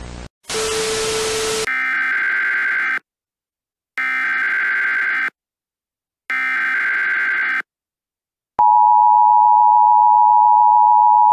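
Emergency Alert System tones. Static cuts out, a loud burst of noise follows, then three short SAME header data bursts about a second apart. About three-quarters of the way in, the steady two-tone EAS attention signal starts and is the loudest sound.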